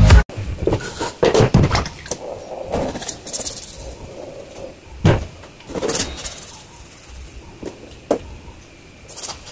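A knife scraping and knocking on a raw fish and a wooden cutting board as the fish is cleaned, in irregular strokes, with one heavier knock about five seconds in. Background music cuts off abruptly right at the start.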